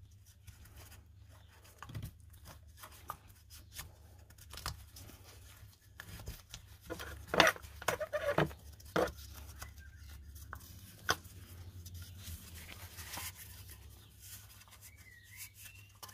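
Hands fitting new rubber O-rings onto a plastic oil filter housing cap: scattered clicks, taps and rubbing, with a burst of louder sharp clicks about halfway through.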